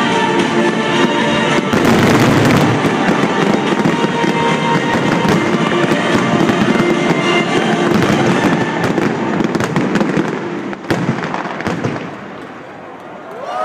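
Fireworks finale: a dense barrage of shells bursting and crackling overhead, with music playing underneath. The barrage thins out and dies down near the end.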